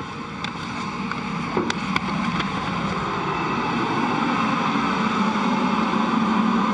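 Steady noise of the International Space Station's cabin ventilation fans and equipment, growing louder over the first few seconds, with a few light knocks near the start.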